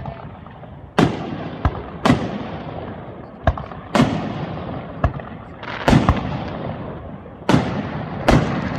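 Aerial fireworks shells bursting close overhead: about a dozen sharp bangs, irregular but roughly one a second, each trailing off in a rumbling echo.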